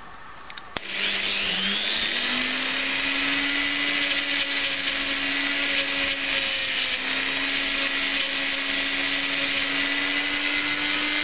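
Rotary tool clamped in a lathe toolpost, switched on with a click about a second in. It spins up in pitch and then runs steadily while its small abrasive grinding stone is trued with a diamond dressing pencil.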